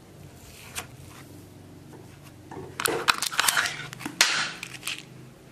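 Plastic slime packaging being handled: a run of crinkling and crackling clicks, starting about three seconds in and lasting about two seconds.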